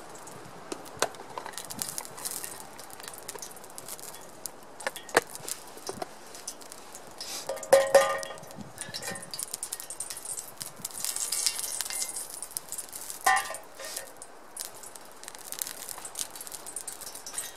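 Food frying in a metal pan over a campfire: a steady sizzle with sharp crackles and pops, and metal utensils clinking and scraping against the pan, loudest in a ringing cluster about eight seconds in and again about thirteen seconds in.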